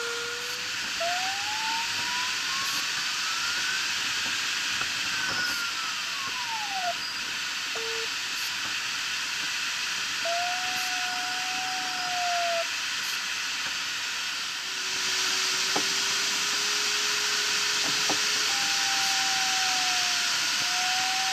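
Steady airflow hiss in a glider cockpit, with the electronic variometer's continuous tone sliding up and down in pitch: it climbs high and falls away in the first seven seconds, then holds at a middle pitch, then drops to a low tone and jumps back up. About 15 seconds in the hiss gets louder.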